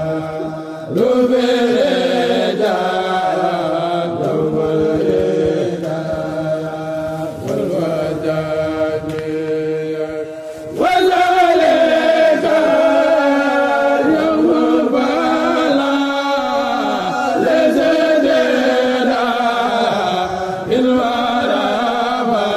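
Mouride kourel chanting a khassida, unaccompanied voices in long, drawn-out melodic lines. There is a brief pause about ten seconds in, then a new phrase comes in louder.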